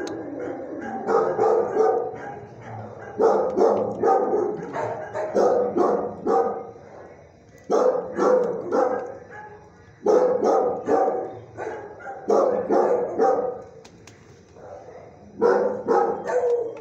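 Dogs barking in shelter kennels: bouts of several sharp barks, one about every two seconds.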